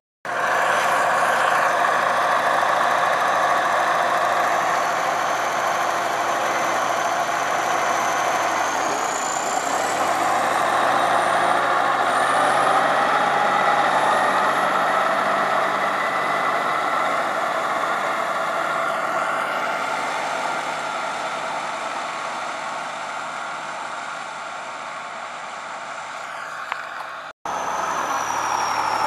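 Diesel engine of a T-150K wheeled tractor running steadily as it works a stubble field, swelling a little and then fading. Near the end it cuts off abruptly to a different engine running.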